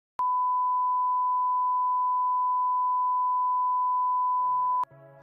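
TV test-card tone: a single steady high beep held unchanged for about four and a half seconds, starting with a click and cutting off suddenly near the end.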